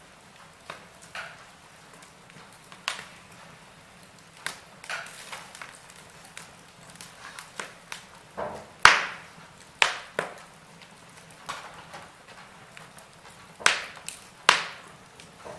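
Wood fire burning in a fireplace, crackling with irregular sharp pops over a soft steady hiss. The loudest snaps come a little before the middle and twice near the end.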